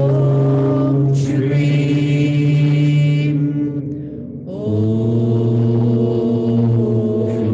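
A woman chanting a meditation mantra in long, held notes, with a short breath between two notes about four seconds in.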